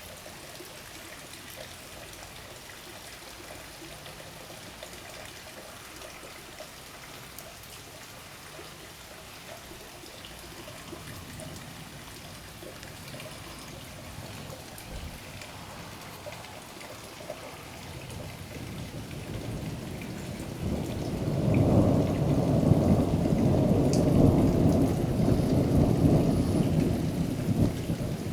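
Steady rain falling during a thunderstorm. About two-thirds of the way through, thunder rolls in, building into a long, loud, low rumble that carries on to the end.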